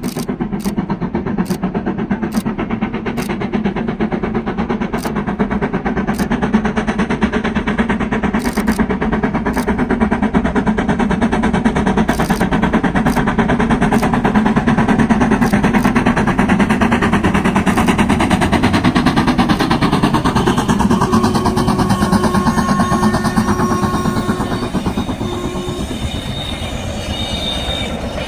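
Steam train passing: the locomotive's exhaust and the rumble of the coaches grow louder to a peak about halfway through, then ease off. Sharp beats come at a regular pace early on, and thin, high squealing tones appear in the last few seconds.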